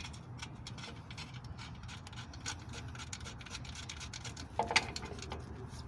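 Small scattered metal clicks and light rubbing from the new front shock absorber's lower mount being handled and lined up on its guides by hand, with a short cluster of louder clicks about four and a half seconds in, over a low steady hum.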